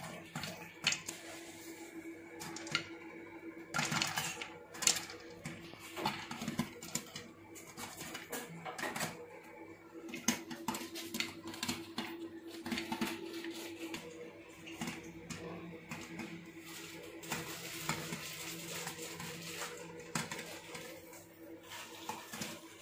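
Popcorn kernels popping in a covered steel pot on a stovetop: a quick, irregular run of sharp pops that is busiest about four to five seconds in.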